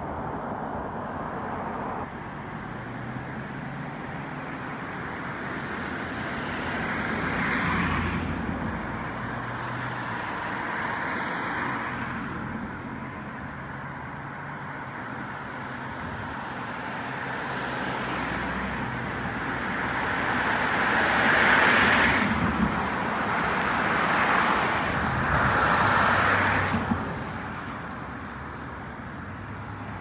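Road traffic: cars passing one after another, a steady tyre and engine noise that swells as each goes by, loudest about two-thirds of the way through.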